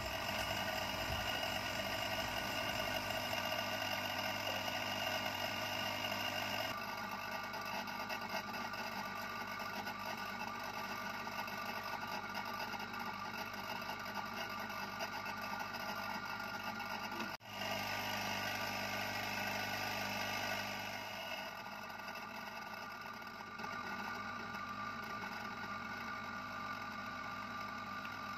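Hot-air rework gun blowing steadily, its blower motor giving a constant hum, while a surface-mount receiver IC on a radio circuit board is desoldered and replaced. The hum briefly cuts out about two-thirds of the way through.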